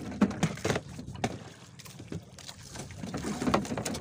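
Small wooden outrigger boat rocking at sea: irregular knocks and splashes against the hull.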